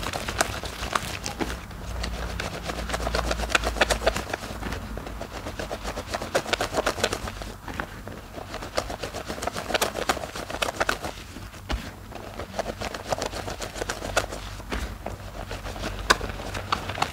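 Wet squishing and squelching of thick soap foam as hands squeeze and knead a bar of soap in a basin of soapy water, with a dense crackle of small irregular clicks and some sloshing.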